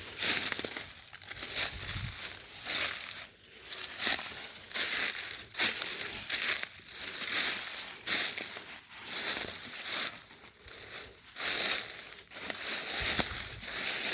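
Footsteps crunching through dry leaves and sticks on a woodland floor, a crackly crunch with each step at a steady walking pace of about one step a second.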